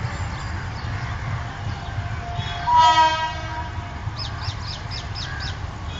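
Locomotive air horn: one short blast of about half a second, around three seconds in, over a steady low rumble.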